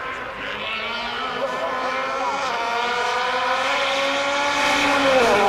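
A vehicle engine accelerating, its pitch rising steadily as it grows louder, then dropping sharply about five seconds in.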